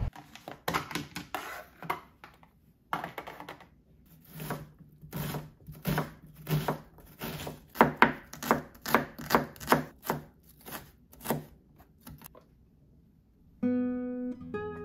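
Kitchen knife mincing an onion on a wooden cutting board: a long run of quick, uneven chopping strokes with a short pause early on. Acoustic guitar music starts near the end.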